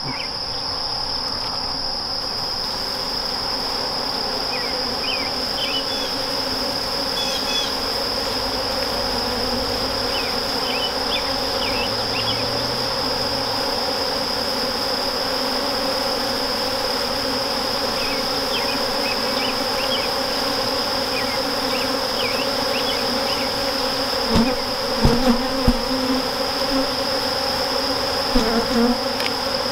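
Honeybees buzzing in a steady hum from an open hive while bees are brushed off a frame of queen cells. A few light knocks come in the last few seconds.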